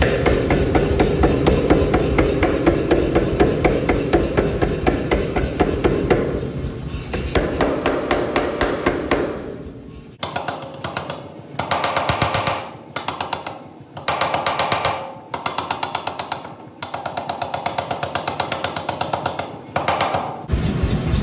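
Power hammer striking a hot steel billet in rapid blows, several a second, drawing one end down into a taper. About halfway through the blows change to short bursts with brief pauses between them.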